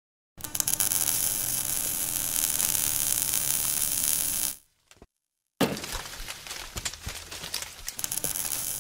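Sound effects of an animated logo intro: a dense crackling hiss for about four seconds, a short silence, then a sudden hit followed by scattered crackles that fade.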